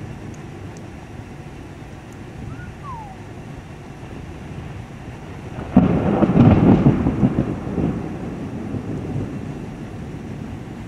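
Thunderstorm at night: a steady low background rumble, then a sudden loud thunderclap about six seconds in that rolls on for a couple of seconds and fades away.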